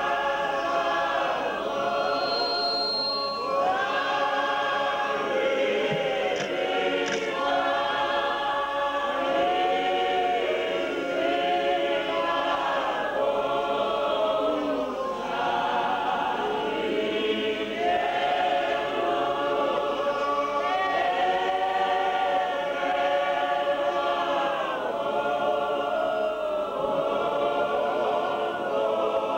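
A large choir of women singing together in harmony, phrase after phrase, with no instruments heard.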